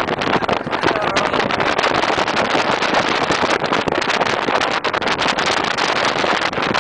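Wind rushing and buffeting over the microphone with the road noise of a moving pickup truck, heard from its open bed.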